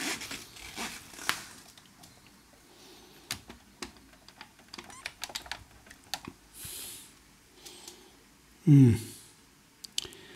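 Irregular small clicks and taps of hand tools, screws and parts against the radio's chassis as it is taken apart, with a short low hum from a person's voice about nine seconds in.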